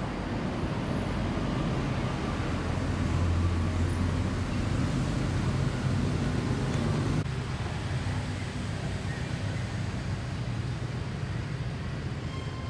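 A steady low engine-like drone, as of a motor vehicle running, which drops and changes character about seven seconds in.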